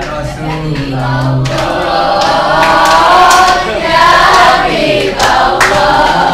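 A group of people singing together, with a few hand claps.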